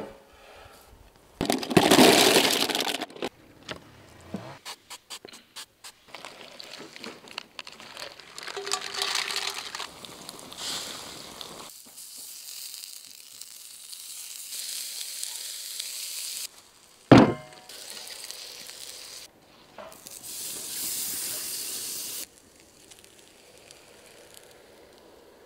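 Prawns and other seafood sizzling on a hot steel griddle plate over charcoal, in short stretches that start and stop abruptly. There is a single sharp knock a little past the middle.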